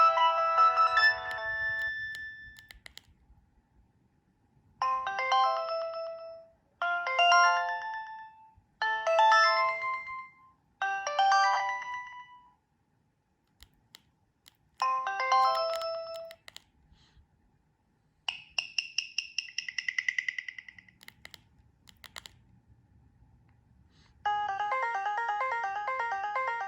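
Preloaded ringtones of a Nokia 2125i mobile phone playing one after another. The tail of one tune gives way to a short melodic phrase played five times with pauses between, then a rapid pulsing chirp a little past halfway, and a fast, busy tune starts near the end.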